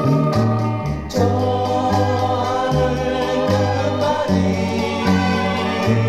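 A Korean pop song played from a vinyl record on a turntable: group vocal harmony over a band, with the bass line stepping from note to note about twice a second.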